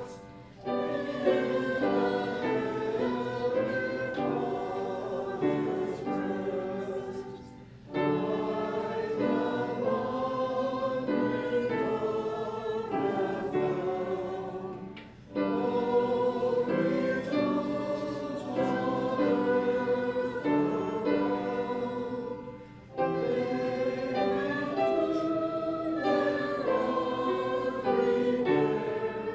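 Congregation singing a hymn in chords, phrase by phrase, with a short breath between lines about every seven to eight seconds.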